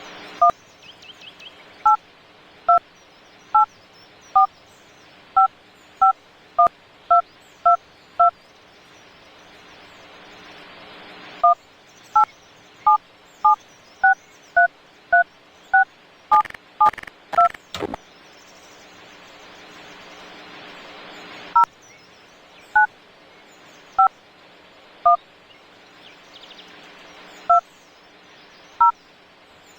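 Telephone touch-tone (DTMF) keypad beeps: about thirty short two-note beeps keyed one at a time in three irregular runs with pauses between. A steady hiss and low hum run underneath, and there are a few clicks midway.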